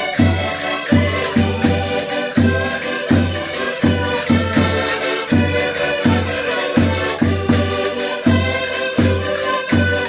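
Several Portuguese concertinas (diatonic button accordions) playing a lively folk dance tune together, with a cavaquinho strumming along. The bass buttons give a bouncing beat about twice a second under the reedy chords and melody.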